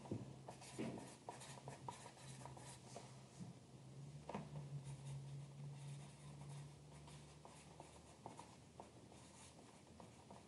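Faint, irregular scratching and light clicks, like writing or handling paper, over a low steady hum.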